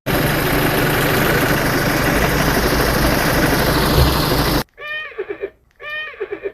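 A loud, steady rushing noise with a low hum for about four and a half seconds, which cuts off suddenly. Then a toy horse's recorded whinny plays twice in a row, each call short and arching in pitch before ending in a quavering trill.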